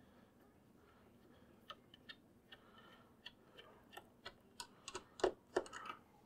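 Faint, irregular light clicks and ticks of a screwdriver working a screw out of the plastic base of an HP ThinkJet printer. The clicks come more often and louder toward the end.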